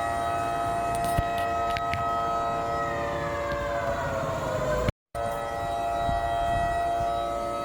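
Community curfew siren wailing, signalling the start of the lockdown curfew. It holds a steady tone, falls in pitch about three seconds in, cuts out for a split second, then comes back at its higher pitch and begins to fall again near the end.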